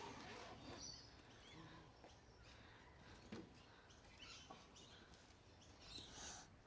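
Near silence: faint outdoor ambience with a few faint bird chirps and soft handling noises from the suitcase being opened.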